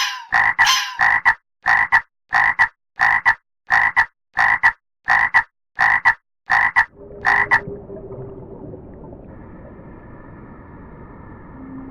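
An animal's croaking call repeated about one and a half times a second, each call a quick double note. It stops abruptly about seven and a half seconds in, leaving a steady low hiss with a faint hum.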